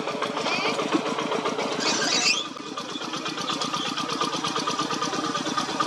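Diesel engine of a two-wheel walking tractor running with a steady, even beat. A brief high-pitched rising sound cuts in about two seconds in.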